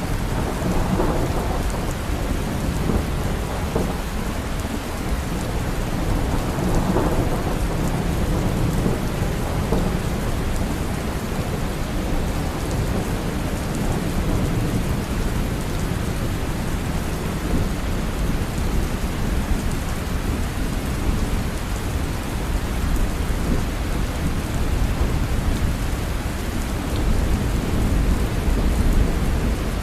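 Steady rain falling hard, with low thunder rumbling under it and swelling a little now and then.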